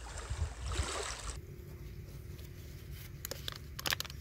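Shallow river water trickling and splashing around a syringe being filled. After about a second and a half it drops away to a quieter stretch with a few sharp crinkles and clicks, from handling a syringe and a plastic-wrapped syringe filter package.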